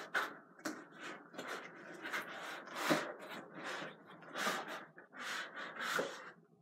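Packaging rustling and scraping in quick irregular bursts as the YouTube Silver Play Button plaque is handled and lifted out of its box.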